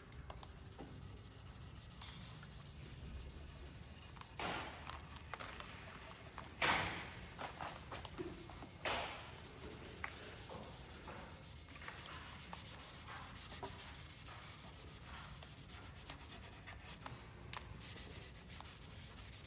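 Scotch-Brite pad scrubbing the cured epoxy of a carbon-fibre rigger with soapy water: steady, rapid rubbing strokes, with several louder strokes between about four and nine seconds in. The scrubbing takes the amine blush off the epoxy before sanding.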